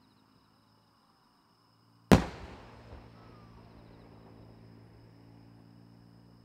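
A single large aerial firework shell bursting about two seconds in: one sharp, loud boom followed by a long rolling echo that fades slowly. Insects chirp faintly throughout.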